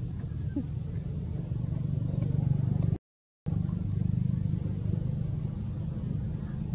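A steady low rumble, like a motor vehicle's engine running nearby. The sound cuts out completely for about half a second, a little after the middle.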